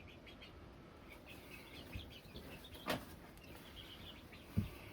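Faint bird chirping, many short high chirps, with a sharp click about three seconds in and a low knock near the end.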